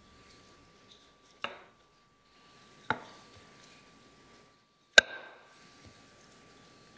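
Wooden rolling pin knocking against a wooden cutting board three times as dough is rolled out, the last knock the loudest, with faint rubbing and rolling between.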